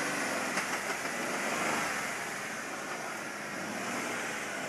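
Jeep Rubicon crawling slowly in low range down an off-road obstacle, its engine running quietly under a steady rush of wind noise.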